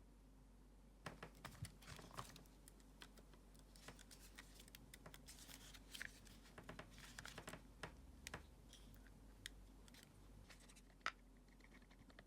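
Faint, irregular small clicks and crinkly rustles of small objects being handled by hand, busiest in the first eight seconds, with one sharper click near the end.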